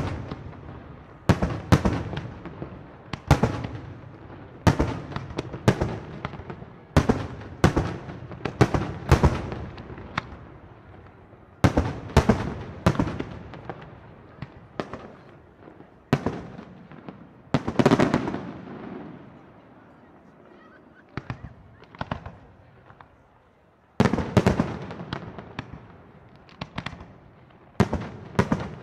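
Aerial firework shells bursting, a sharp bang every second or two, each echoing away. About two-thirds of the way through there is a quieter stretch of a few seconds with only small pops, and then the bangs start again.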